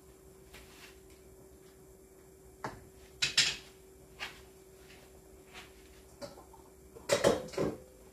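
Kitchen handling noises: short knocks and clatters of utensils and dishes, a loud cluster about three seconds in and another near the end, over a faint steady hum.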